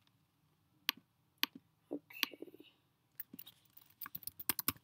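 Computer keyboard typing: a few separate key clicks, then a quick run of keystrokes in the last second or so.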